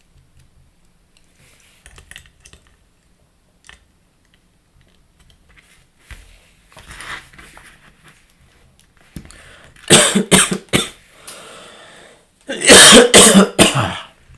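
A man coughing in two hard fits of several quick coughs each: one about nine seconds in and another near the end. Before them there are faint small clicks of Lego bricks being handled.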